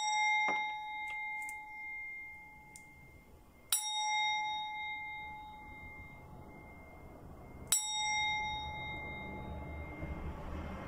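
Brass singing bowl struck three times with a wooden mallet, about four seconds apart, each strike ringing out as a clear bell tone that slowly fades. It is played to cleanse the space. A low traffic rumble rises near the end.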